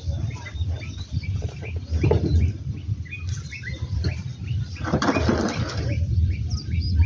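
Small birds chirping repeatedly over a steady low buffeting rumble, with a brief noisy burst about five seconds in.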